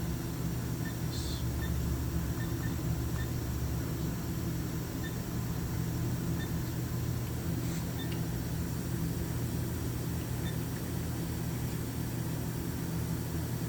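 Spindle of a Haas VF2 vertical machining center running at about 4,000 RPM, a steady machine hum. A lower rumble eases off about four seconds in.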